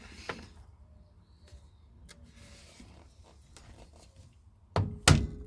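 Two sharp metallic knocks near the end, a moment apart, from a center punch dimpling the face of an ignition lock cylinder to guide a drill bit. Before them there are only faint handling clicks.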